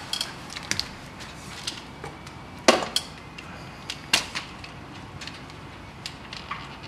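A few scattered sharp knocks and clicks, with two louder knocks about three and four seconds in.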